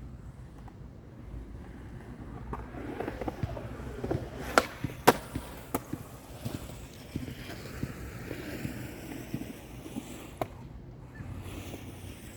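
Skateboard wheels rolling over concrete, with several sharp clacks of the board; the two loudest come about half a second apart, a little under halfway through.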